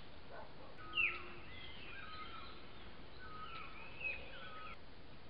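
Several wild birds calling and whistling over a steady background hiss. The loudest are a sharp downward-slurred call about a second in and another near four seconds, with shorter whistled notes in between.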